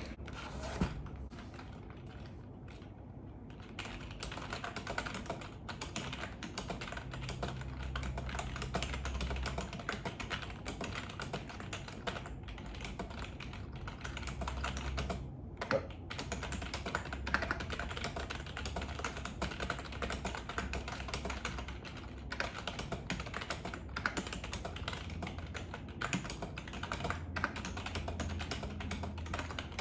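Rapid, continuous typing on a membrane computer keyboard during a timed typing test. Dense key clicks begin about four seconds in and carry on without a break.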